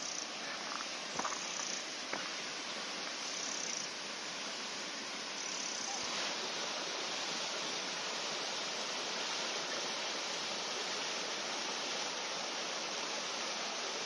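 Hardraw Force waterfall, a single unbroken drop of about 30 m onto rock, giving a steady hiss of falling and splashing water. The flow is thin, low after a dry spell.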